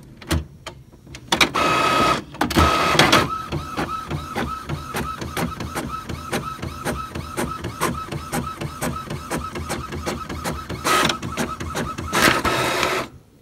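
Epson WorkForce WF-2650 inkjet printer printing a page on plain paper: loud mechanism runs about two seconds in and again near the end, with a steady, evenly repeating rhythm of print-head passes in between.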